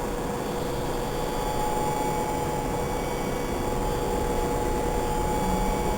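Budd-built Baltimore Metro subway car heard from inside while running: a steady low rumble under a steady whine, growing slightly louder toward the end.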